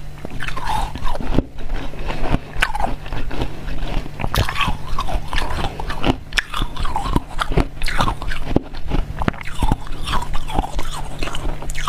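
Ice being bitten and chewed, picked up close on a clip-on lapel mic: a continuing run of sharp crunches, with a steady low hum beneath.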